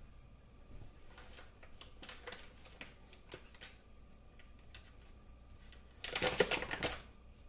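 Scattered light clicks, then a rapid, louder run of clicking and crackling lasting about a second near the end.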